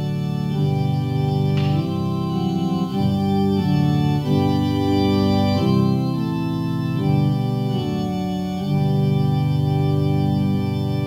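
Organ playing a slow offertory piece in sustained, held chords that change every second or so.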